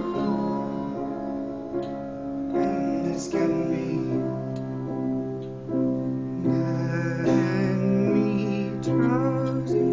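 Live piano playing chords with a voice singing along, holding notes that waver near the end.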